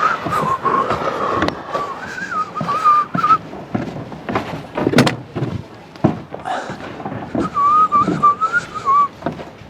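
A person whistling a wavering tune in two phrases, one at the start and one near the end, with scattered knocks and thuds of work in between and a sharp knock about halfway through.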